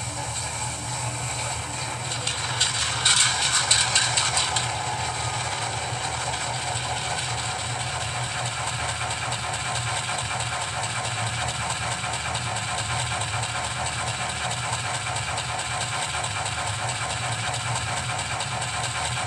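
Rapido SD10 model locomotive's onboard sound decoder playing the diesel prime mover's start-up sequence. A louder rattling start-up burst comes a few seconds in, then the engine settles into a steady idle.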